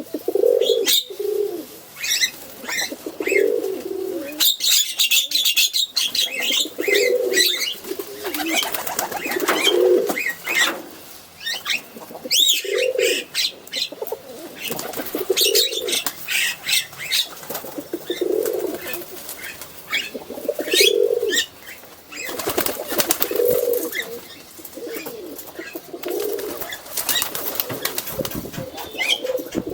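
Male domestic pigeon cooing over and over, a low warbling coo about every two to three seconds, typical of a courtship display. Sharp high chirps and clicks sound between the coos.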